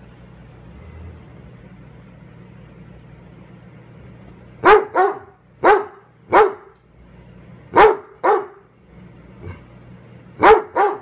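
A Bassador (basset hound–Labrador mix) barking at a gnome figurine held up to it: about eight loud barks, singly and in quick pairs, starting about four and a half seconds in, each dropping in pitch.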